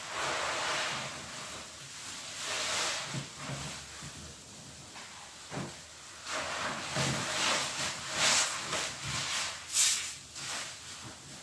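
Foam-soaked sponges squeezed and kneaded by hand: wet squishing of the lather in repeated surges, the loudest near the end.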